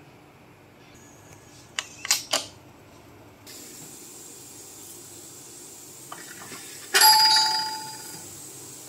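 Three sharp metal clicks from a pressure cooker's lid being closed about two seconds in. About seven seconds in, a loud clatter with a brief ringing as a handful of coriander seeds is dropped into a stone mortar.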